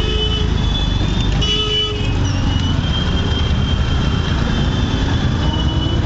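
Busy street traffic heard from an open e-rickshaw: a steady low rumble of engines and road noise, with vehicle horns honking. The loudest honk comes about a second and a half in.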